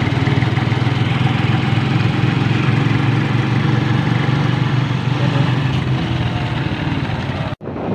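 A vehicle's engine running steadily with a low, even hum and road noise, heard from on board. It cuts off abruptly near the end.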